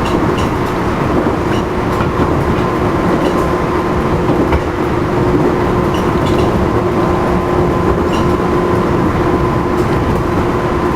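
Running noise of JR East 211-series motor car MoHa 210-2020 at a steady speed: its externally-fanned traction motors hum with a steady tone over the rumble of the wheels, with occasional faint rail-joint clicks. This car is known for an unusual motor noise.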